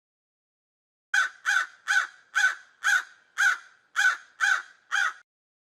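Crow cawing: a quick series of nine caws, about two a second, starting about a second in.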